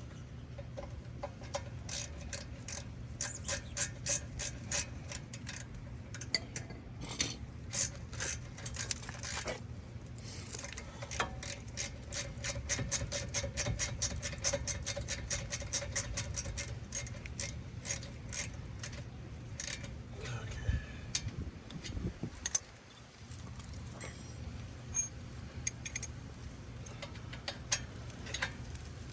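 Hand ratchet wrench clicking in quick runs as the rear brake caliper bolts are tightened back up, with one sharp knock about two-thirds of the way in.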